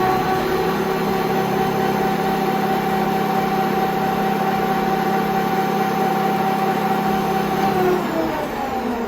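Bernardo Profi 550 WQV mini metal lathe's 750-watt motor and spindle spinning at speed in the second speed range, a steady whine held at one pitch. About eight seconds in the pitch falls as the lathe slows down.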